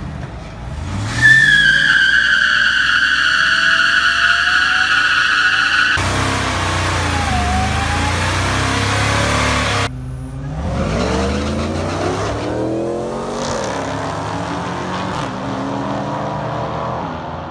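Second-generation Ford SVT F-150 Lightning pickup's supercharged 5.4-litre V8 revving through a burnout, its rear tyres squealing in a high, steady screech for about five seconds, then rough, uneven revving as the tyres keep spinning. After a sudden cut, cars accelerate hard down a drag strip, engine pitch rising in several sweeps.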